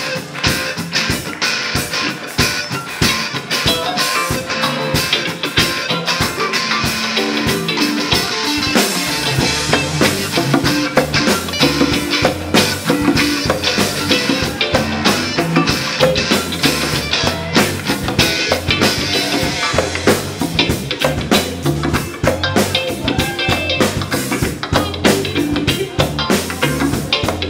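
Live rock band playing an instrumental passage: drum kit with a steady beat, electric guitars, electric bass and keyboard. The low end fills out after about nine seconds.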